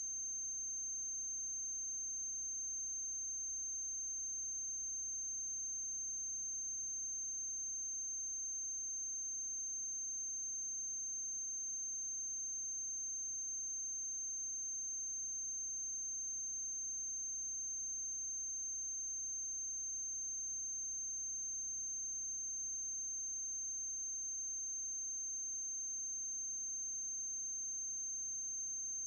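Steady electrical hum with a constant high-pitched whine, unchanging throughout: the blank soundtrack of a silent film transfer carrying only equipment noise.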